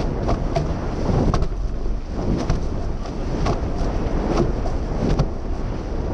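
Wind buffeting the microphone and water rushing past the hulls of a racing catamaran sailing fast, with irregular slaps and splashes as the bows cut through the chop.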